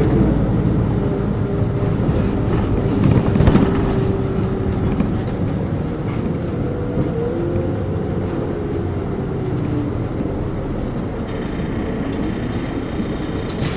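Volvo 8700LE city bus under way: its Volvo D7E diesel engine and ZF Ecomat automatic gearbox running, with a steady whine that slides down in pitch about five seconds in and rises and falls again a little later. A higher, steady squeal joins near the end.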